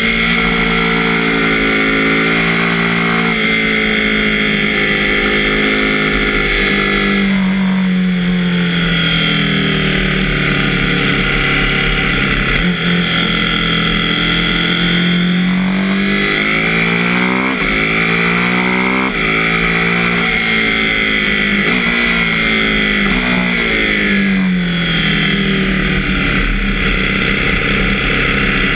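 KTM 790 Duke's 799 cc parallel-twin engine running under way, its note rising and falling again and again as the rider opens and rolls off the throttle, over steady low wind rumble on the microphone.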